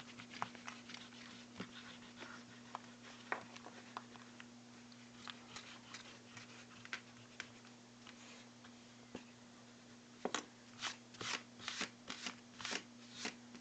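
A rubber eraser rubbing back and forth over drawing paper, erasing pencil lines: short scratchy strokes, faint at first, then louder and in quick runs from about ten seconds in. A low steady hum runs underneath.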